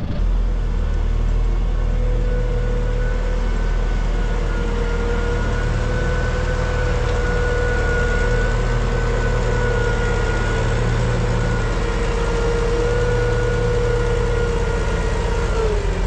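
Tractor engine running steadily, a low drone with a steady whine above it that dips slightly in pitch near the end.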